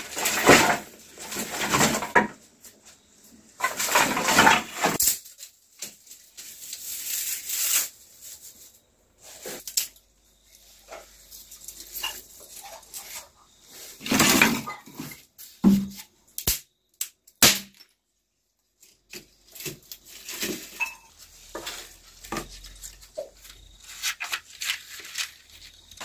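Dry sticks and brushwood being handled and laid in a clay hearth: bursts of rustling and crackling, with a few sharp snaps or knocks about two-thirds of the way in.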